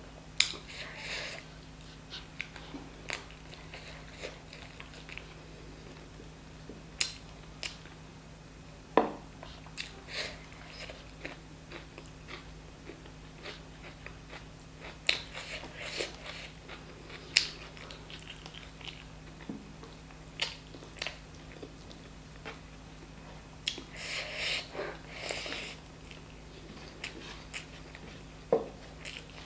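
Close-miked eating: wet chewing and lip-smacking with scattered sharp clicks and crunches of chicken curry and rice being bitten, with longer bursts of chewing about a second in, around 15–17 s, and near 24–26 s.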